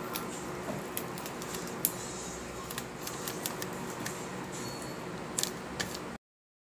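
Clear plastic zip-lock bag crinkling and tape being handled as fingers press a note onto it, with scattered small clicks and taps over a steady background hiss. The sound cuts off abruptly a little before the end.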